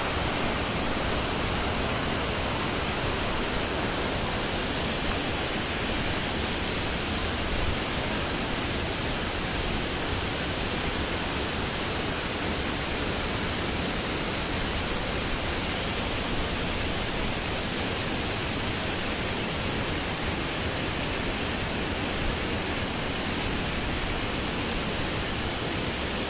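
Waterfall pouring into a river: a steady, even rush of falling and flowing water that does not change.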